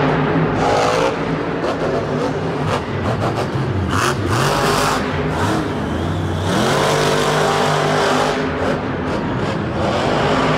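Monster truck engines, big supercharged V8s, revving hard. The pitch falls and climbs again a few times between about three and five seconds in, then rises sharply about six and a half seconds in.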